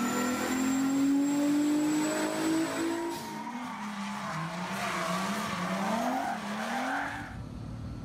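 Turbocharged Mazda Miata engine on a chassis dyno in a full pull, its pitch climbing steadily with a thin high whine above it. About three seconds in, the car spins donuts, tyres squealing while the engine revs rise and fall. Near the end the sound drops to a quieter steady background noise.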